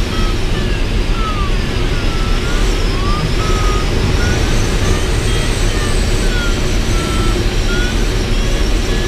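Steady rush of air over the cockpit of an ASK 13 glider, with an audio variometer chirping short tones that slide up and down in pitch, signalling changing lift while the glider circles.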